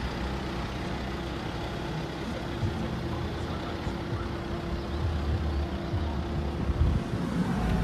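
MG Gloster 4x4's diesel engine running steadily at low revs as the SUV crawls over rough off-road ground: a low, even rumble with a faint steady hum.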